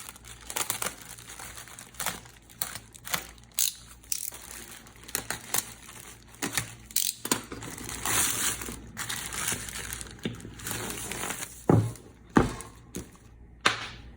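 Packaging being crinkled and crumpled while a metal drill press vise is unwrapped and handled, with many small clicks and rustles and two heavier knocks near the end.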